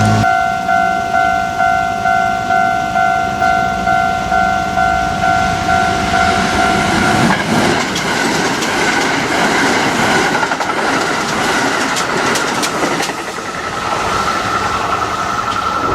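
Level-crossing warning bell ringing at about two strokes a second. About seven seconds in, a Kintetsu Osaka Line train passing over the crossing takes over, its wheels clattering over the rail joints.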